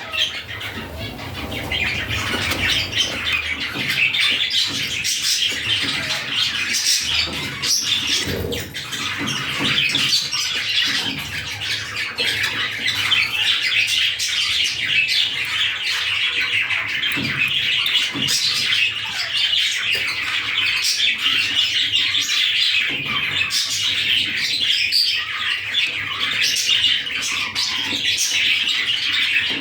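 Gray budgerigar chattering and warbling continuously, a busy stream of quick chirps and squawky notes typical of a content, happy budgie.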